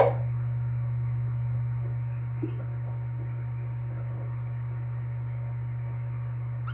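Steady low electrical hum, with no other clear sound apart from a faint brief tick about two and a half seconds in.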